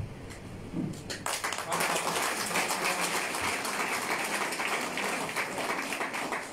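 Audience applauding: many hands clapping, starting about a second in and running on steadily.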